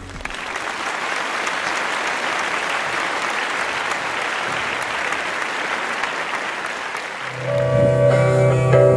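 Crowd applauding steadily. A little over seven seconds in, music with guitar starts over it.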